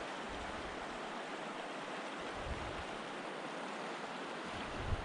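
Steady rush of a flowing mountain stream, with a brief low thump near the end.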